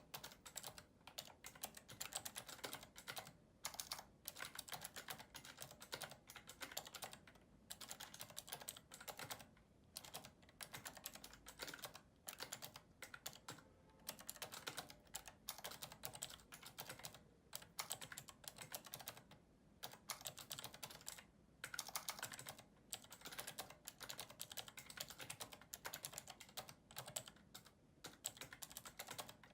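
Fast touch-typing on a keyboard with Cherry MX Blue switches, each keystroke giving a sharp click. The clicks come in dense runs of a second or two, broken by short pauses.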